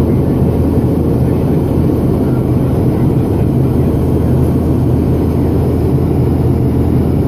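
Steady cabin noise of a jet airliner after takeoff, heard from inside the passenger cabin: a loud, even engine drone and airflow rumble with a low hum, unchanging throughout.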